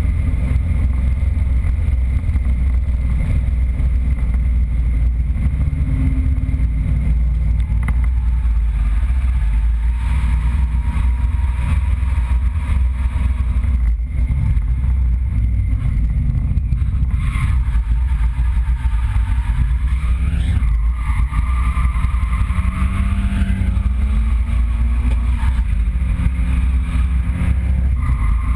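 Nissan 200SX drift car's engine running loudly, heard from inside the roll-caged cabin as a deep, steady drone with the revs shifting around.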